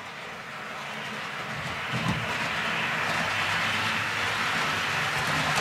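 HO-scale model train running along the track and getting steadily louder as it approaches: a steady low electric-motor hum under the running noise of the wheels on the rails, with one knock about two seconds in.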